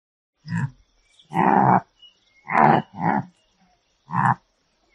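Bongo antelope calling: five short calls in a row, the second one the longest.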